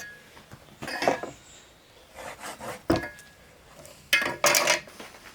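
Hand tools being picked up and set down on a wooden workbench: scattered clinks and rubs, a sharp knock about three seconds in, and a brief scraping burst near the end.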